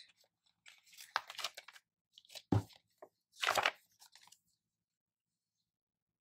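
Paper crinkling and tearing as stickers are peeled from a sticker book page, in a few short bursts, with one sharp tap about two and a half seconds in.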